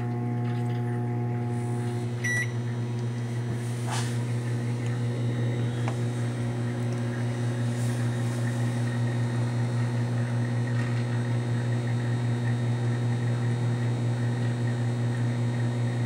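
Microwave oven running with a steady low hum while it heats a mug of coffee. A short beep comes about two seconds in, and a light click about four seconds in.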